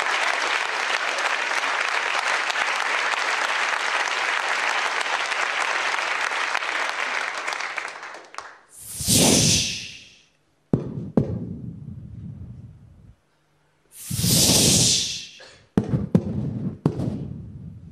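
Audience applauding, dying away after about eight seconds. Then come two loud whooshes about five seconds apart, with a few sharp clicks between them.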